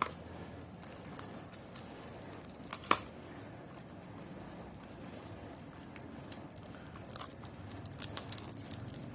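Small cardboard Tomica toy box being opened by hand: scattered clicks and rustles of the flaps and packaging, the loudest click about three seconds in and a quick cluster near the end.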